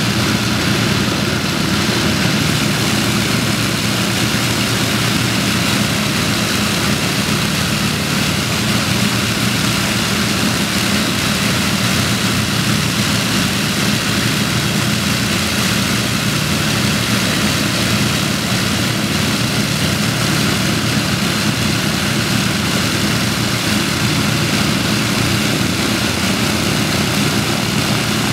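Avro Lancaster bomber's four Rolls-Royce Merlin V12 engines running together on the ground, propellers turning, with a deep, even note that holds steady throughout.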